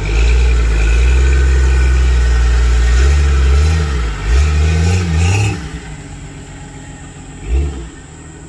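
Off-road 4x4's engine revving hard in mud, its pitch surging up and down several times. About five and a half seconds in it drops back to a quieter run, and one short burst of throttle comes near the end.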